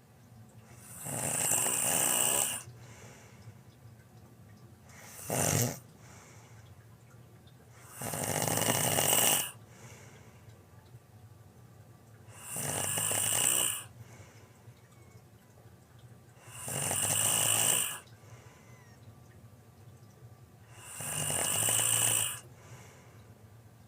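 A sleeping person snoring loudly: five long, rasping snores about every four seconds, with a short, sharp snort between the first two.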